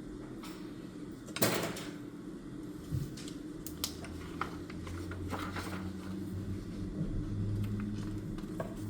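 Small handling sounds at a study desk: a brief rustle about a second and a half in, the loudest thing, then a few light clicks and knocks, over a steady low hum.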